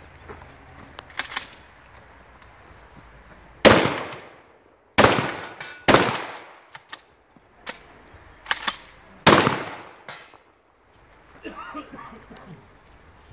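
Four loud gunshots fired at an uneven pace one to three seconds apart, each trailing off in a long echo, with several fainter sharp cracks in between.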